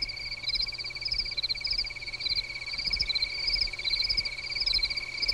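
Night chorus of calling insects: a steady, fast-pulsed high trill with a second, higher chirping call repeating about twice a second over it.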